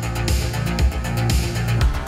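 Electronic dance music with a steady beat, played through a pair of Adam Audio A5X studio monitors and picked up by room microphones.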